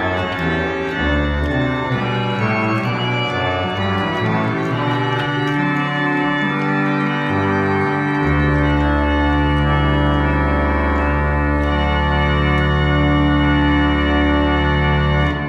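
Pipe organ playing the closing bars of a Baroque chorale prelude. Moving parts run over the bass, then about halfway through a deep pedal note enters and is held under the final chords. The organ cuts off right at the end.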